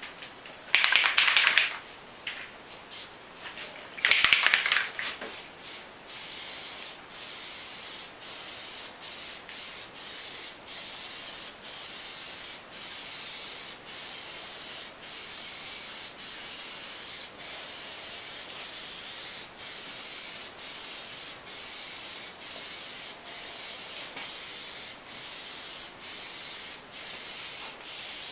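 Aerosol spray can of Plasti Dip hissing as it coats an outboard motor cowl. Two louder short bursts come near the start, then long steady spraying passes broken by brief gaps about every second.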